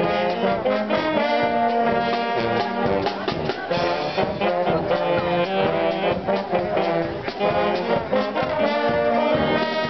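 Brass band playing a tune: saxophone, trumpets, trombones and sousaphone over a steady beat.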